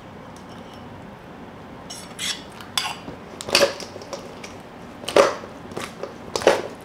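Sauce-coated chicken wings tossed in a stainless steel mixing bowl: the wings land against the metal with a wet clatter about six times, starting about two seconds in.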